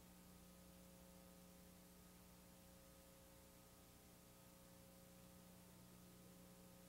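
Near silence: a faint steady electrical hum with light hiss.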